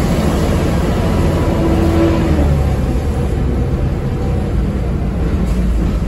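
Volvo B7TL double-decker bus under way, heard from inside the lower deck: a steady low engine and driveline drone with road noise. A whine running over it stops about two seconds in.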